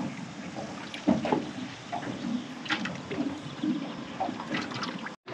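Small waves lapping irregularly against the hull of a boat at anchor.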